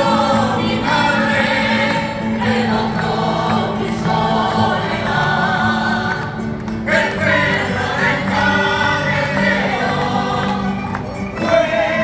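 A group of singers performing with instrumental backing, carried over a stage's large loudspeakers; the voices break off briefly about halfway through before the next phrase.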